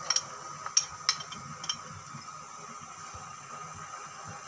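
A few light clinks of a small ceramic dish knocking against a steel cooking pot as paste is scraped off it, all within the first two seconds, then a low steady background hiss.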